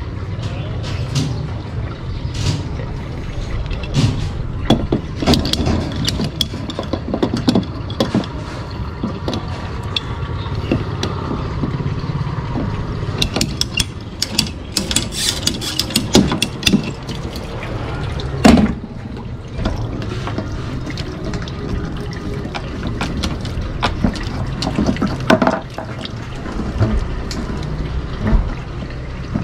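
Hand tools clicking and knocking on PVC water pipes at a plastic water tank, over a steady low hum. The clicks come in a dense run around the middle, with one loud knock a little past halfway.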